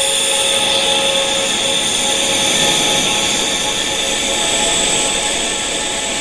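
Wind chimes tuned to tinnitus frequencies, ringing as many overlapping sustained tones from mid to very high pitch over a steady rushing hiss.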